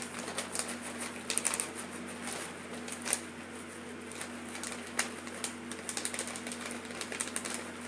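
Plastic bag of shredded cheese crinkling as it is shaken out over a tortilla, an irregular run of small crackles and clicks with a few louder crinkles. A faint steady hum runs underneath.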